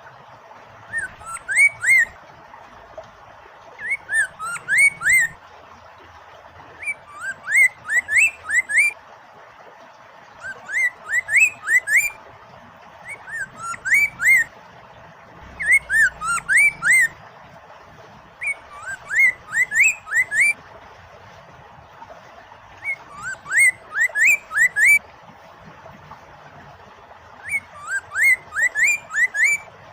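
Poksay mandarin (Chinese hwamei) singing: short bursts of quick whistled notes, repeated every three to four seconds, over a steady hiss of flowing water.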